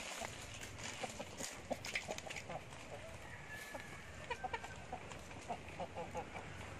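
Short clucking calls of fowl in small clusters over a continuous light rustling and crackling of straw.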